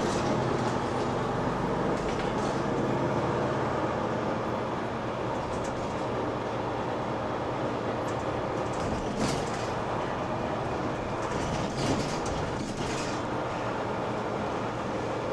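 Mercedes-Benz Citaro C2 K hybrid city bus under way: steady engine and road noise with a low hum, and brief rattles or knocks about nine and twelve seconds in.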